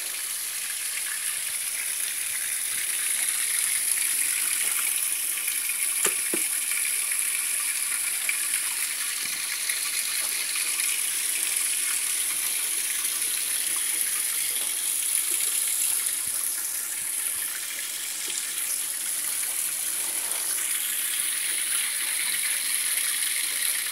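Spring water running out from between rocks and falling, a steady rushing splash.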